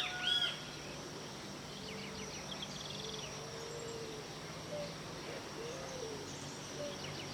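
Birds calling before dawn: a loud call trails off in the first half second, then soft low-pitched calls repeat every second or so over faint high chirps and a steady high insect drone.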